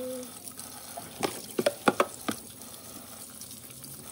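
Knife blade scraping scales off a pinfish: a quick run of about six sharp strokes about a second in, over the steady hiss of a running faucet in a steel sink.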